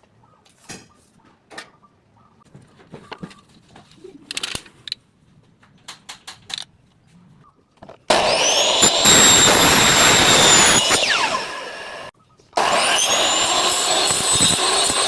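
A few light clicks and knocks, then an electric power tool runs loud twice: its whine rises as the motor spins up, then holds steady. The first run lasts about four seconds, stops, and the second starts shortly after and lasts about two and a half seconds.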